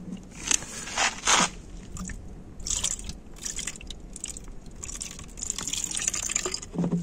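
Antifreeze being poured into a Honda Magna 250's coolant expansion tank, splashing and gurgling in short irregular spurts as the tank is topped up to the level mark.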